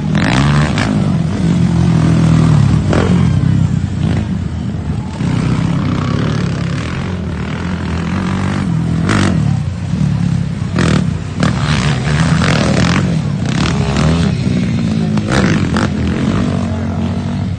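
Racing quad ATV engines running hard around a dirt track, the pitch rising and falling as riders rev, shift and back off, with scattered sharp clicks.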